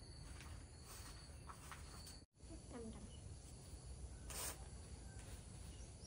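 Faint outdoor ambience with a steady high insect trill that cuts off abruptly about two seconds in, followed by low background with a brief rustle about four seconds in.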